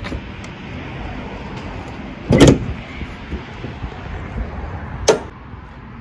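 Hood of a Ford F-250 Super Duty pickup being opened: a loud clunk about two and a half seconds in, then a shorter, sharper knock about five seconds in.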